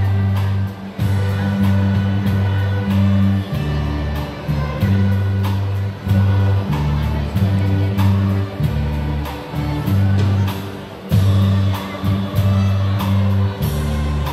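Youth string orchestra of violins and cellos playing a piece, with strong held bass notes that change about once a second under the higher string lines.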